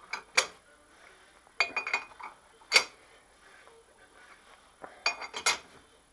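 A steel hand tool clinks and clanks against the cast-iron fittings of a South Bend 14-1/2" lathe as its parts are tightened. The sharp metallic clinks come in four short clusters.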